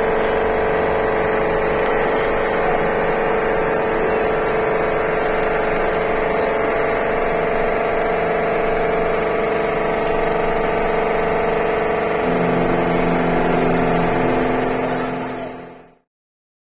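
Boat engine running steadily with a deep drone; a lower note joins about twelve seconds in, and the sound fades out near the end.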